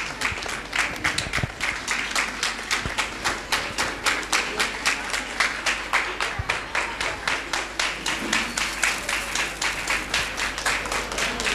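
Audience applauding, a dense run of hand claps that keeps going.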